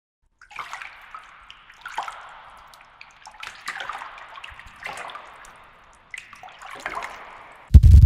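Water splashing in about six separate strokes, each a short wash of sound with a sharp start that fades away, roughly one every second and a half. Near the end a sudden, much louder low rumble cuts in.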